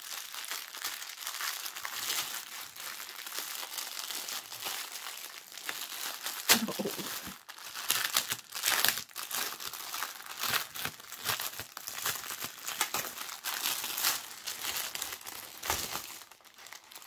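Crinkling of small plastic zip bags full of diamond painting drills being handled and shuffled, with one sharper knock a little after six seconds in.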